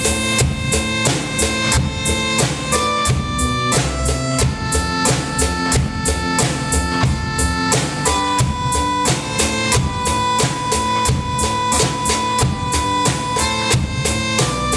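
A drum kit played with a steady beat along with a backing song that carries a sustained melody.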